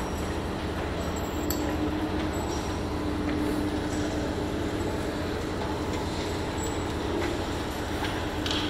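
Steady mechanical rumble with a continuous low hum, unchanging throughout, from the machinery of a deep underground railway station.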